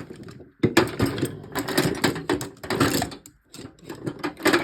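Hand tools being rummaged through: screwdrivers and other tools clattering and clicking against each other in dense, irregular clusters as they are searched and shifted about.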